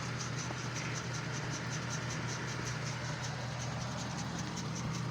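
Car engine idling steadily, a low even hum with no revving, with a faint fast high pulsing over it, about six pulses a second.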